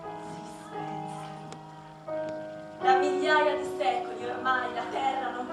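Live stage music of slow, sustained notes that start one after another and fade. About three seconds in, the music grows louder and a voice comes in over it.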